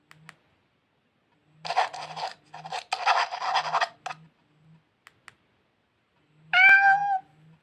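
A Nokia Asha 210 playing an animal-sound tone through its small speaker. A stretch of scratchy noise lasts a couple of seconds, then a short cry with a falling pitch comes near the end, like a cat's meow.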